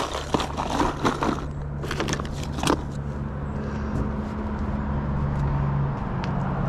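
Hard plastic lure box clicking and rattling as it is handled, with the lures knocking inside, for about the first three seconds. A steady low hum of road traffic follows.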